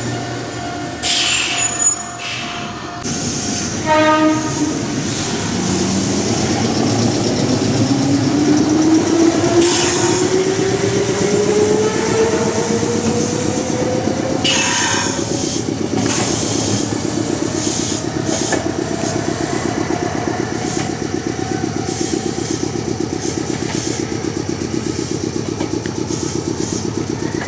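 Meitetsu 5300 series electric train: a short horn blast about 4 s in, then the whine of its traction motors rising steadily in pitch as it picks up speed, giving way to a fast, even rhythmic running noise from the wheels and motors.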